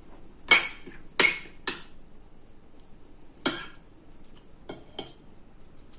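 Cutlery clinking against dishes during eating: a few sharp, separate clinks, the loudest about half a second and a second in, with a couple of fainter taps near the end.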